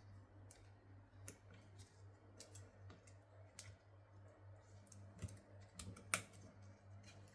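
Faint, scattered small clicks and taps of hand tools and phone parts being handled during a phone screen replacement, with one sharper click about six seconds in, over a steady low hum.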